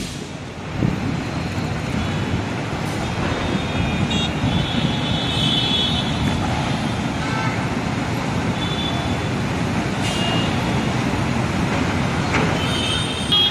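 City road traffic: a steady noise of vehicle engines and tyres, with a few short high tones now and then.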